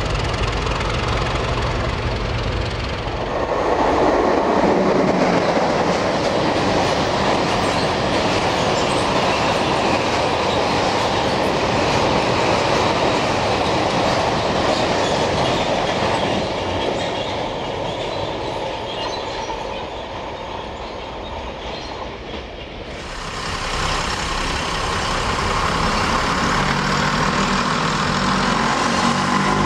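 A long freight train running through a station at speed, its wagon wheels clattering steadily over the rail joints for most of the clip. At the start, before it, a Class 37 diesel locomotive's engine is running. About three-quarters of the way in, the sound cuts to another passing train.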